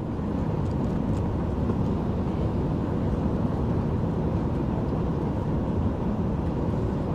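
Steady low rumble of an Airbus A380's cabin noise heard from inside the cabin during the landing, with a faint steady hum above it.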